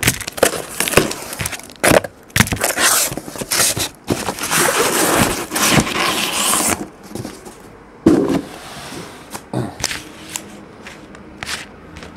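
Cardboard shipping carton being opened: packing tape slit and ripped, with cardboard flaps scraping and crackling for the first several seconds. Then the smaller card boxes inside are slid out and set down with scattered light knocks and clicks.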